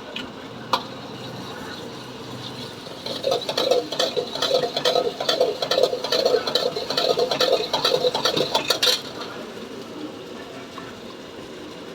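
Rapid metal-on-metal clattering of a utensil in a pan or pot, as in stirring, lasting about six seconds and stopping abruptly; a single sharp click comes shortly before it.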